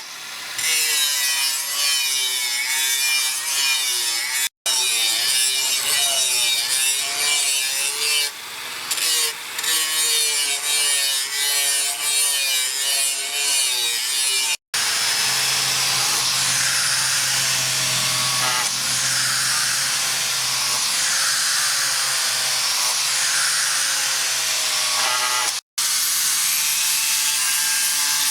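Steel being worked with a metal-cutting tool: a loud, continuous scraping in repeated back-and-forth strokes, with a ringing tone that rises and falls with each stroke. The sound cuts out briefly three times.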